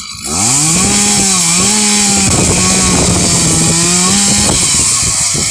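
Chainsaw engine revving up quickly about a quarter second in and running at high throttle, its note dipping briefly now and then. Near the end the steady note gives way to a rougher, noisier sound.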